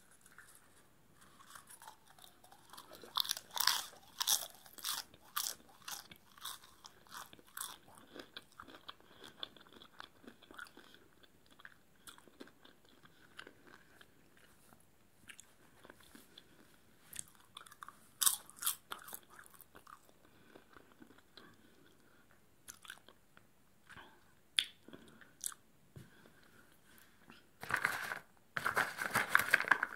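Close-up chewing of crunchy salted popcorn, with crisp crunches coming in irregular bursts. Near the end a hand rummages through the popcorn in a plastic tub, a louder dense rustling crunch.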